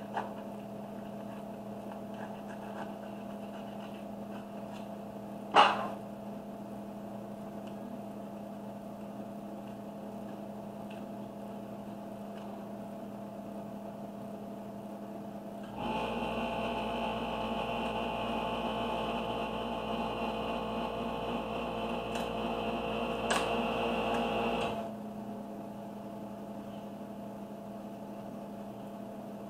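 A steady electrical hum runs throughout. A louder machine whir with a high whine comes on about sixteen seconds in, runs for about nine seconds, and cuts off. There is a single sharp click about six seconds in.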